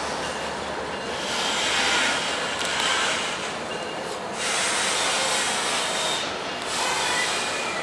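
Freight train cars rolling past on steel rails: a loud, noisy rush that swells and eases every second or two, with faint wheel squeal.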